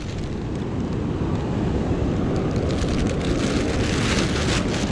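Wind buffeting the microphone in a steady low rumble, with a thin plastic bag crinkling and rustling in the hands from about halfway in.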